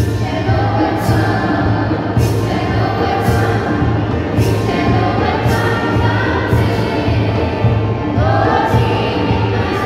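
A group of school students singing a song together, accompanied by hand drums keeping a beat of about one stroke a second.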